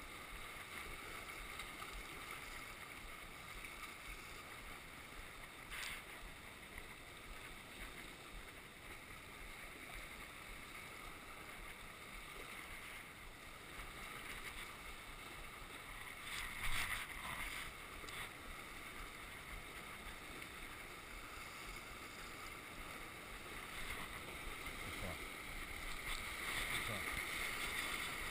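Sea surf washing around coastal rocks, a low steady rush with a louder swell about sixteen seconds in, growing a little louder near the end.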